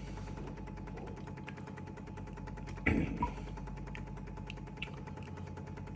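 Jura Z10 coffee machine's pump running in rapid, even pulses over a steady hum while it brews cold-extracted coffee, with one brief thud about halfway through.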